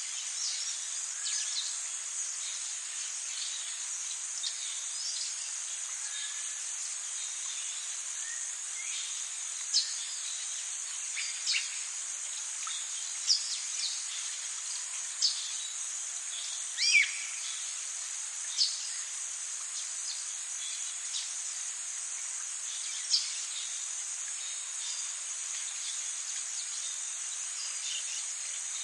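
Forest ambience: a steady, high-pitched insect chorus, with short bird chirps scattered over it, about seven louder ones through the middle part.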